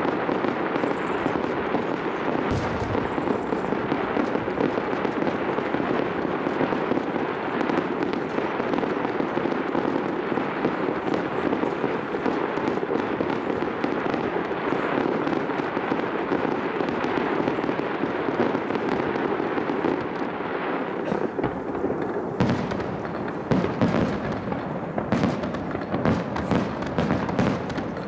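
Aerial fireworks bursting in quick succession, a dense unbroken crackle and rumble of shells. From about three-quarters of the way through, sharper separate bangs stand out from it.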